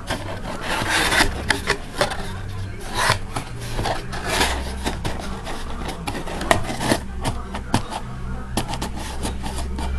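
Cardboard packaging being handled: a box lid and foam insert rubbing and scraping against the cardboard, with many small taps and knocks as the box is moved.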